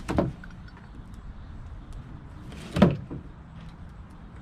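A sharp knife cutting through an old kayak seat strap: a short slicing stroke at the start and a louder one nearly three seconds in.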